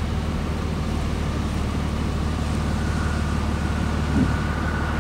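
Truck running on the road, heard from inside the cab: a steady low engine drone with an even hiss of road and wind noise over it.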